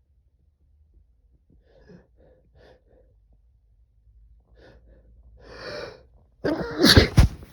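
A man's sneeze brought on by chhikni snuff: a few faint breaths, then a long drawn-in breath, and a loud sneeze near the end.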